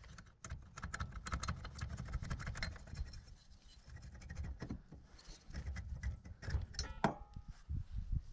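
Irregular small clicks, taps and scrapes of metal engine parts being handled as the two-stroke cylinder of a Buddy 50 scooter is worked off its crankcase, over a low rumble.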